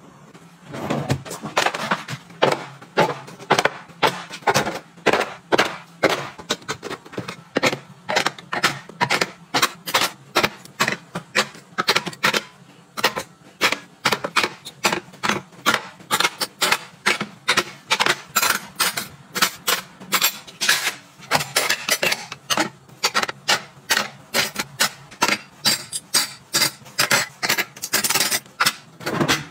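Metal cutlery and utensils clinking and clacking as they are set down into plastic drawer-organizer trays, with dishes knocking together: a steady run of sharp taps, about two a second.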